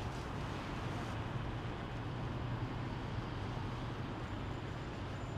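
Steady low drone of a taxi on the move, its road and engine noise heard from inside the cabin.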